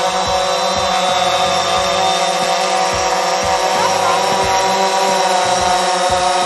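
DJI Phantom 4 Pro quadcopter hovering low, its four motors and propellers giving a steady whine of many pitches at once as it slowly turns in place.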